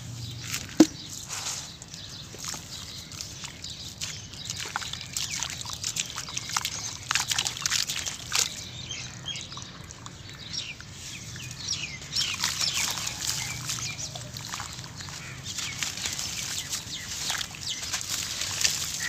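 Hands squeezing and squelching wet sand-cement paste in a shallow pool of water, with sloshing and irregular gritty crackles; one sharp click about a second in.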